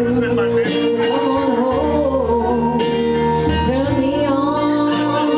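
A woman singing karaoke into a microphone, amplified through the PA over a loud backing track with a steady bass; she holds long notes that bend in pitch.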